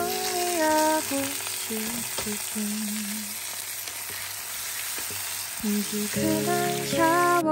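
Sliced onions and chopped tomatoes sizzling in hot oil in an iron kadai as the tomatoes are tipped in and stirred with a spatula. Background music plays in the first second and comes back near the end.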